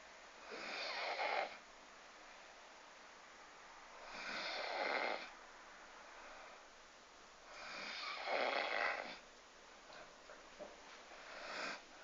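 Bull terrier snoring in its sleep: three long snores about four seconds apart, then a few short, fainter snuffles near the end.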